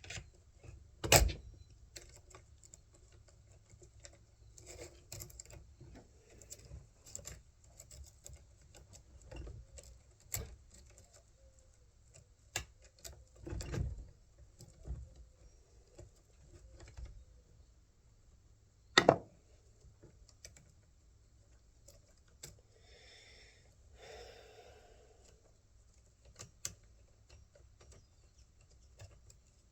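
Scattered clicks, taps and knocks of chainsaw parts and hand tools being handled during reassembly of the bar and chain, with two sharper knocks about a second in and about 19 seconds in.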